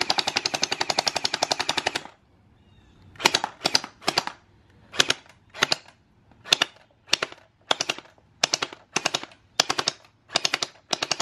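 Battery-powered automatic gel ball blaster firing water beads: one rapid full-auto burst of about two seconds, then after a short pause a string of short bursts, about two a second.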